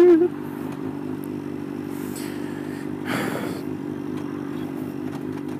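Sport motorcycle engine idling steadily in stopped traffic, with a short rush of noise about three seconds in. A loud held tone cuts off just after the start.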